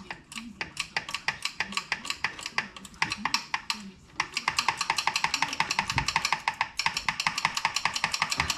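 Ratchet wrench with an 8 mm socket clicking rapidly as bolts on the reinstalled oil filter housing are run down. There are two long runs of fast, even clicks, about ten a second, with a short break about four seconds in.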